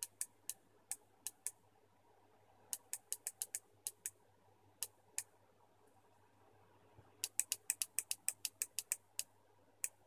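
The snap contact of an opened-up Siemens washing-machine pressure switch (pressostat) clicking as it is pressed by finger. Single sharp clicks at first, then quick runs of clicks about three seconds in and again from about seven seconds in, six or seven a second.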